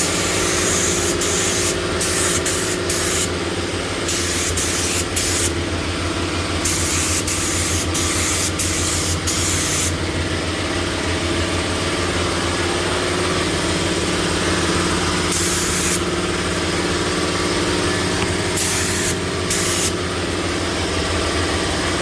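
Air spray gun spraying 2K high build primer, its hiss starting and stopping as the trigger is pulled and released pass after pass, often in the first half and a few times later. A steady low machine hum runs underneath.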